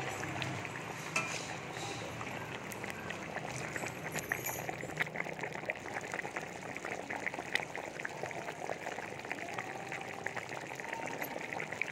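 Coconut-milk crab gravy bubbling in a pan, a steady dense crackle of small pops as it cooks down.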